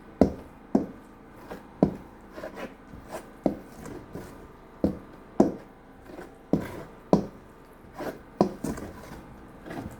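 A spoon knocking and scraping against a plate in short, irregular strokes, one or two a second, as bambara-nut flour is stirred into red palm oil.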